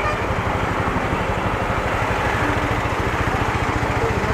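Single-cylinder four-stroke engine of a TVS Apache RTR 200 4V idling with a steady, even low pulse.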